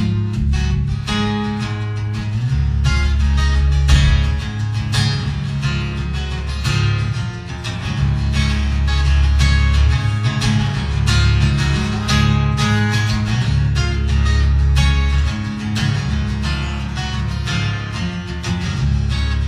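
Solo acoustic guitar playing an instrumental tune, with quick, dense picked strokes over strong sustained bass notes.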